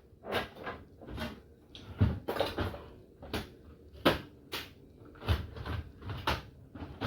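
Plastic clicks and knocks of an HP LaserJet 1020 laser printer being handled as its toner cartridge is taken out: a string of irregular short knocks.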